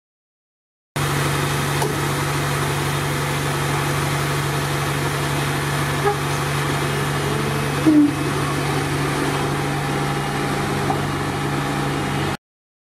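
Fire engine's diesel engine running at a steady idle, a loud even hum, with a couple of faint knocks about six and eight seconds in. The sound starts abruptly about a second in and cuts off abruptly near the end.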